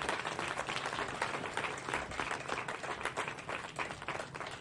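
Audience applauding, many hands clapping at once in a dense, even stream that eases slightly toward the end.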